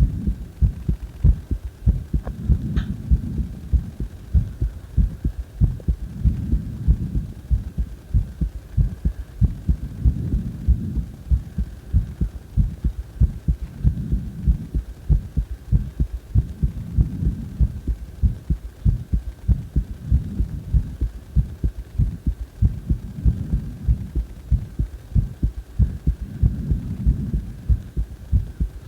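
A person's heartbeat recorded close up: low, rapidly repeating thuds, with a low rumble underneath that swells and fades about every three and a half seconds. A small click about three seconds in.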